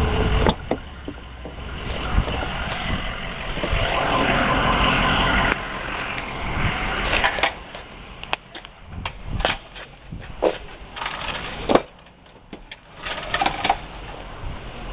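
Toyota 7M-GTE turbocharged inline-six engine running, getting louder and then dropping off suddenly about five and a half seconds in, with irregular sharp knocks through the second half; the knocking is taken by the owner for rod knock.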